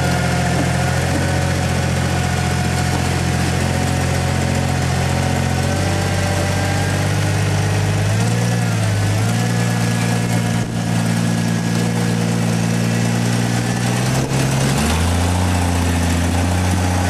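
A rock-crawling 4x4's engine idling and running at low revs, its note shifting up and down a few times as the throttle is worked.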